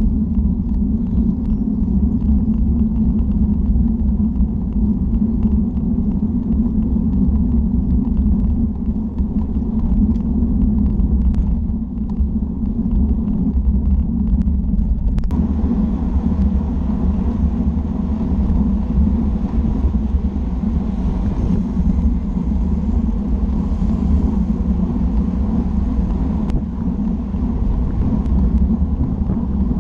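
Steady wind rumble and road noise on the microphone of a camera moving along with a road bicycle at riding speed. The sound changes abruptly about halfway through.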